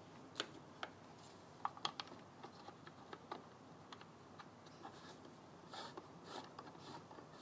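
Faint small clicks and scrapes as stainless Allen-key bolts, nylock nuts and an Allen key are handled and fitted into a plastic clamp bracket. There are a few sharper ticks in the first two seconds.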